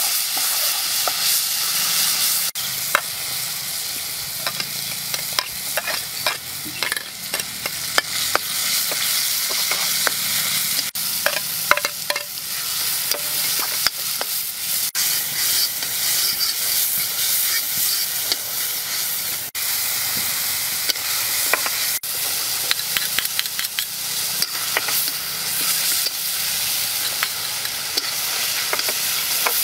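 Hot oil sizzling in a wok while a metal spatula stir-fries the food, with many quick scrapes and clicks of the spatula against the wok.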